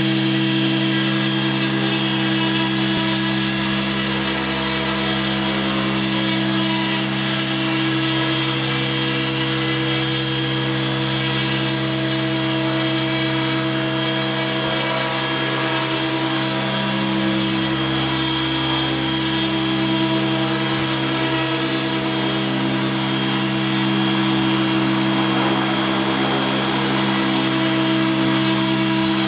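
Electric radio-controlled helicopter (Avant Aurora 90E) hovering: a steady whine from the electric motor and the spinning main and tail rotors, holding a nearly constant pitch throughout.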